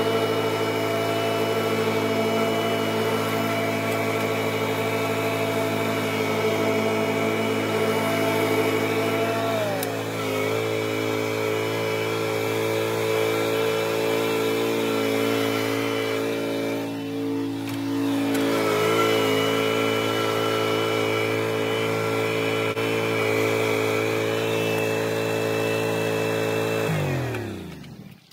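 An engine running at a steady speed, then winding down with falling pitch and dying away near the end as it is shut off.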